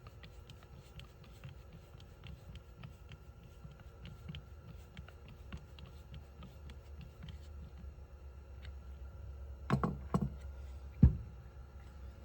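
Small furler parts being handled and fitted together by hand: light clicking and ticking throughout, two or three knocks near the end and then one sharp clack.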